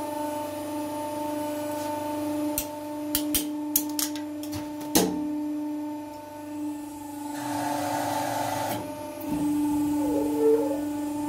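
Hydraulic press motor humming steadily as the ram crushes a polished metal pot, with a run of sharp cracks and pops as the metal buckles and folds, the loudest about five seconds in. Later comes a hiss lasting about a second and a half as the ram is released and lifts.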